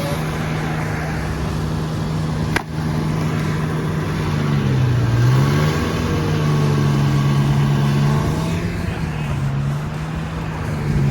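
An engine running steadily, its pitch dipping about five seconds in and coming back up, with a single sharp click about two and a half seconds in.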